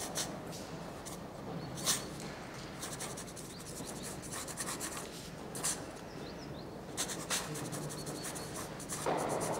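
Pencil scratching across notepad paper as words are written out in short strokes, with a few sharper clicks among them.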